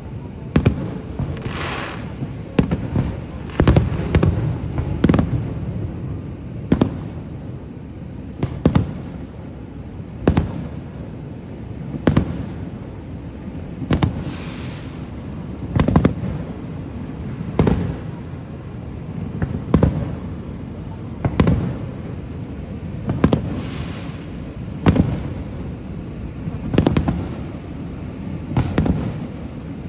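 Aerial fireworks bursting, a sharp bang every one to two seconds with short crackling trails after some of them, over a steady low rumble.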